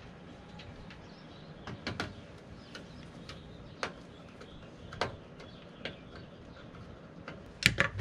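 Scattered light clicks and taps from hands connecting wires to the back terminals of a small plastic power meter, with a sharper pair of clicks near the end.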